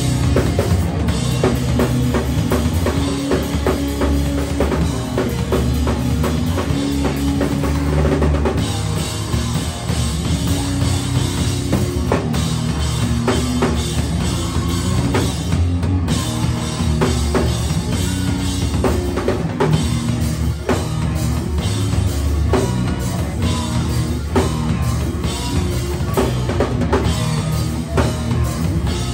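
Live screamo/hardcore band playing loudly and without a break, the drum kit to the fore with bass drum and snare hits over electric guitar and bass.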